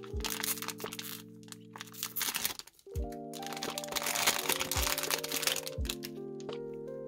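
A plastic blind bag crinkling and rustling as it is handled and torn open by hand, loudest from about three to six seconds in, over background music.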